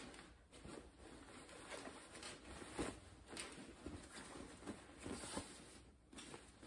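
Faint, irregular rustling of a suit jacket's shell fabric and slippery lining as it is bunched and turned inside out by hand.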